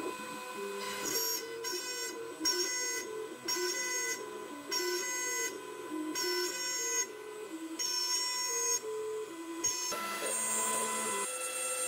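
KRMx02 CNC router milling walnut: a steady router whine with the stepper motors sounding in shifting pitches as the axes move, the pattern repeating about once a second. The tones change near the end.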